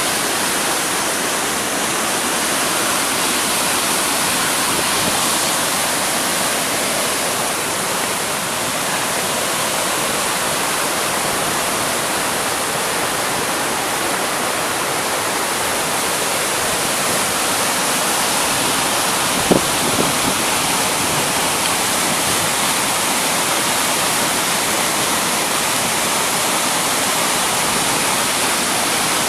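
Waterfall: a steady, even rush of falling water. A brief sharp knock cuts through about two-thirds of the way in, followed by a fainter one.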